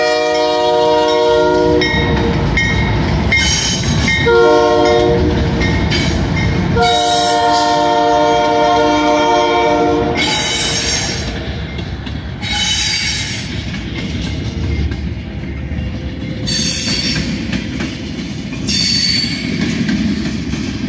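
Nathan K3LA five-chime horn on a Union Pacific GE C44ACM locomotive sounding at close range: a long blast ending about two seconds in, a short blast around four seconds and a long blast from about seven to ten seconds in, the close of a grade-crossing signal. Then the rumble and clatter of freight cars passing, with brief high-pitched wheel squeals several times.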